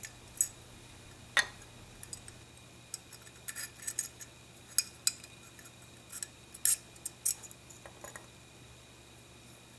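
Light metallic clicks and clinks from small steel shotgun parts being handled: the hammer and locking bolt assembly coming out of a break-action shotgun's receiver and being set down on a wooden block. About a dozen scattered, short clicks.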